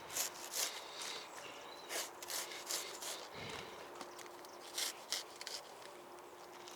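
Hand saw cutting through a thick cabbage stalk in short, irregular rasping strokes, with leaves rustling.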